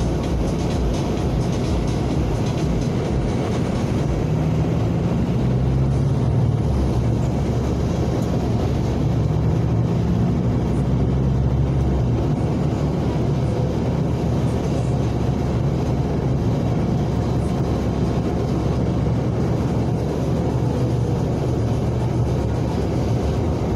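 A road vehicle driving at a steady pace: an even, low rumble of engine and road noise throughout.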